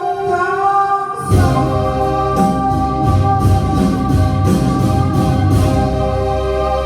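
Instrumental music from a song's backing track: sustained organ-like keyboard chords, with a drum beat and cymbal strokes coming in about a second in.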